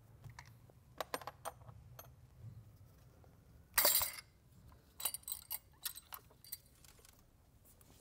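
Metal parts and hand tools clinking and clattering while engine parts are handled, a string of sharp separate clicks with one louder rattle about four seconds in. A faint steady low hum sits underneath.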